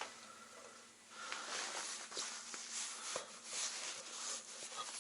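Faint fizzing and crackling of air leaking out through water wetted on a punctured motorcycle tyre, bubbling at the puncture: the sign of where the tyre is leaking.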